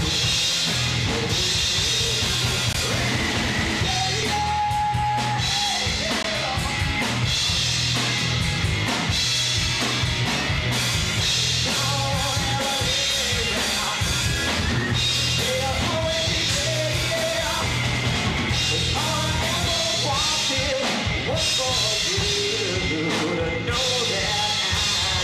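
Live rock band playing a song: electric guitars and drum kit with a sung lead vocal over them, at a steady loud level.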